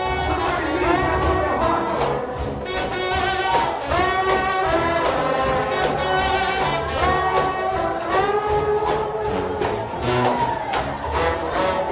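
Trombone shout band playing up-tempo gospel, the brass lines sliding between notes, with a tambourine keeping a fast steady beat.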